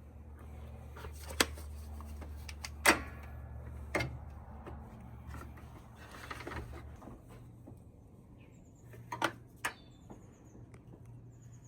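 A few sharp plastic clicks and taps, five in all and spread out, as wiring connectors are unplugged from a car's front bumper. Under them runs a steady low hum that stops about seven seconds in.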